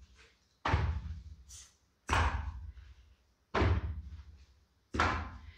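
Four heavy foot stamps on an exercise mat over a wooden floor, one with each step, evenly spaced about a second and a half apart.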